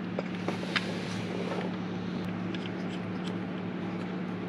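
A steady low hum, with a few faint light clicks in the first second as the brass temperature sensor is handled and threaded into the engine by hand.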